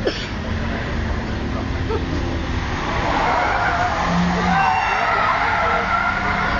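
Car tyres squealing as a car drifts, over a steady engine hum; the squeal grows louder about halfway through.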